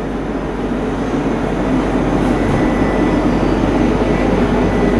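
Steady machine hum and rushing air of a convenience store's air conditioning and drink-fridge fans, with a faint high whine.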